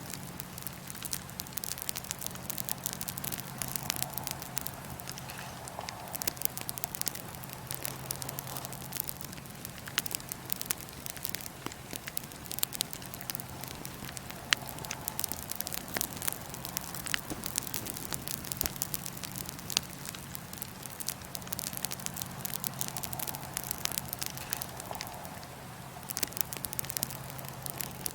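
Wood fire in a fire pit crackling, with frequent small sharp pops and snaps scattered over a steady hiss of burning, and a faint low hum underneath.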